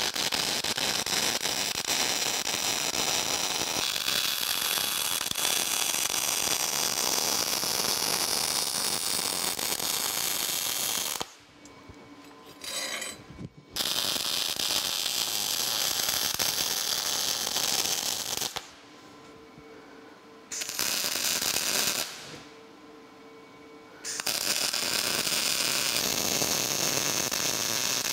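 MIG welding arc crackling and hissing as steel gussets are welded onto a bracket, in several runs: a long one of about eleven seconds, then shorter runs with pauses between them. In the pauses a faint steady hum remains.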